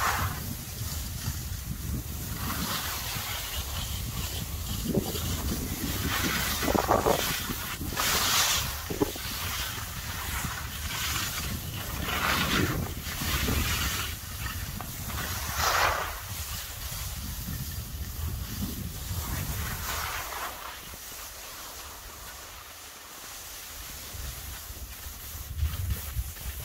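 Wind buffeting the microphone with a steady low rumble, and skis hissing and scraping over the snow in repeated swooshes every second or two, easing off for a few seconds near the end.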